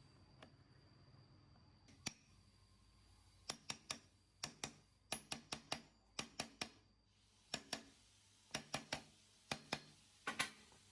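Light metallic taps in quick clusters of two to four, each with a brief high ring.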